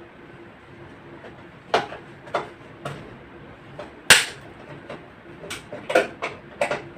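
A string of sharp knocks at an irregular pace, about ten in all over five seconds, the loudest a little after the midpoint.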